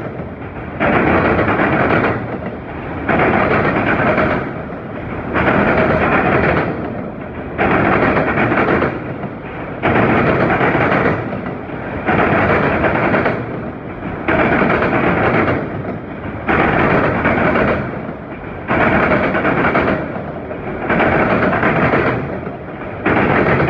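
Freight train of auto rack cars rolling past close by. The sound swells and drops in an even rhythm about every two seconds as each long car goes by.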